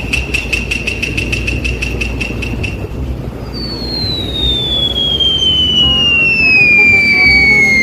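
Rapid high ringing, about four or five strokes a second, over a low rumble, stopping about three seconds in. Then a long high whistle slides steadily down in pitch through the rest.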